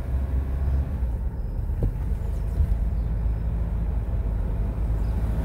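Steady low rumble of a vehicle driving slowly: engine and road noise with an even drone.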